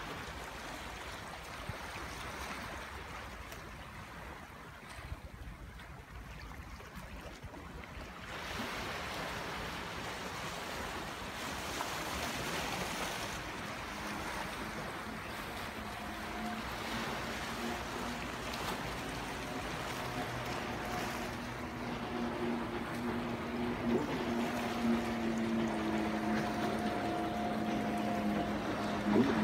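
Rough sea: waves washing and surging, with wind noise. About halfway through, a steady low motor hum with a few held tones comes in and grows a little louder toward the end.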